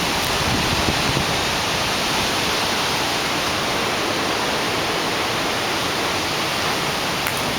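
Heavy storm rain pouring down in a steady, even hiss.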